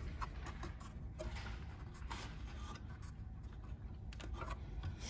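Faint scattered clicks and handling noises as rubber plugs are pried out of the sensor openings in a Zebra ZT620 label printer's frame.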